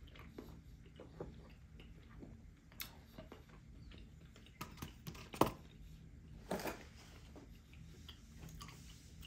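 Close-miked chewing of a bite of ribeye steak with the mouth closed: soft wet smacks and small clicks. A single sharp knock about halfway through is the loudest sound.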